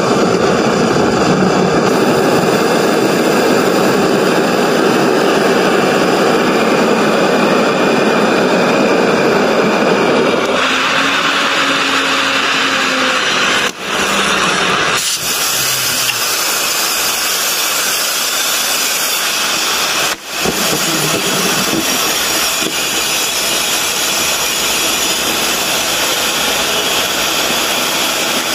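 Oxy-fuel cutting torch on a portable track-cutting machine, its flame running with a loud, steady hiss. About ten seconds in the hiss turns harsher as the cut through the steel plate gets under way, and it drops out briefly twice.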